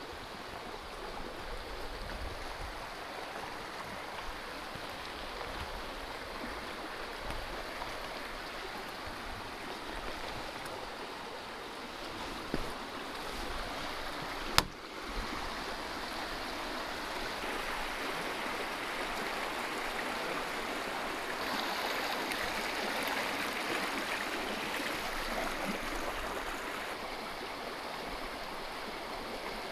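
A stream running over rocks, a steady rush of water that grows louder a little past halfway through. There is a single sharp click near the middle.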